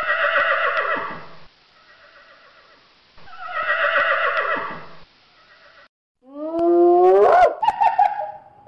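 A horse whinnying twice, each neigh about a second and a half long. Then, about six seconds in, a spotted hyena's whoop calls: several quick rising calls.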